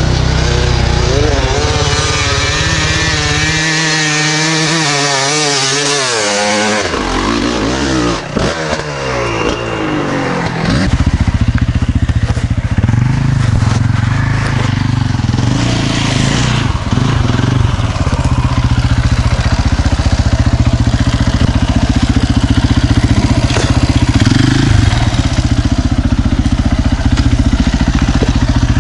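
Enduro motorcycle engine running close by: revving up and down with a wavering pitch for the first several seconds, then a steady, loud low-pitched running from about eleven seconds in, with small throttle rises.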